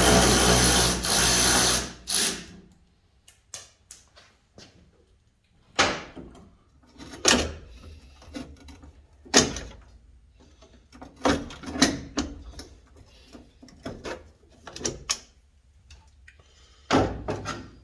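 A power tool runs for about two seconds and stops, followed by scattered metal clanks and knocks of tools and parts being handled. Another short burst of the tool comes near the end.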